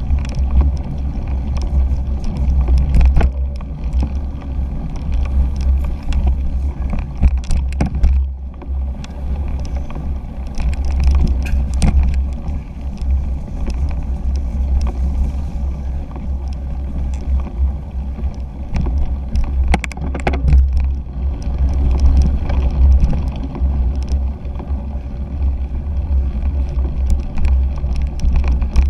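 Bicycle ride noise picked up by a handlebar-mounted action camera on a cyclocross bike rolling over a bumpy dirt course: a continuous low rumble of wind and vibration on the microphone, with frequent sharp clicks and rattles as the bike jolts over the ground.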